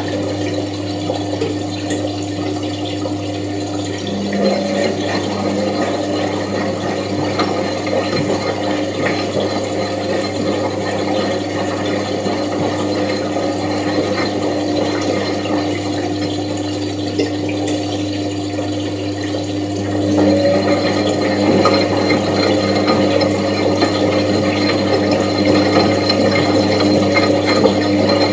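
Washing machine running, with a steady motor hum and a faint rattle of water and parts. It grows a little louder about twenty seconds in.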